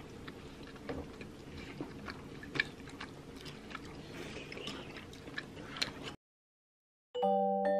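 Eating sounds: a spoon clicking now and then against a ceramic soup bowl, with faint chewing, over quiet room tone. The sound cuts out about six seconds in, and a little before the end mallet-percussion music begins.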